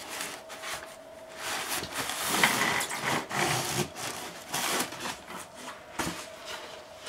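Black foam packing block being pulled out of a Zortrax M200 3D printer's frame, rubbing and scraping against the frame and the packaging around it. The scraping is loudest in the middle, with a few knocks.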